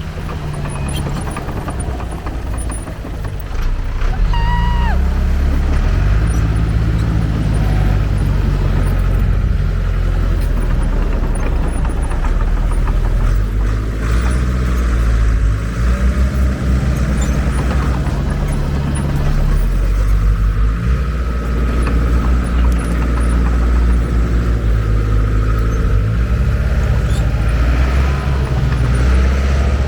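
Diesel engine of heavy earthmoving equipment working under load, its pitch rising and falling as it revs up and down. A brief high squeal sounds about four seconds in.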